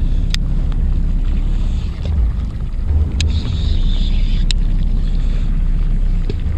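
Steady low rumble of wind buffeting the microphone on a fishing boat at sea, with three short sharp clicks, about a second, three seconds and four and a half seconds in.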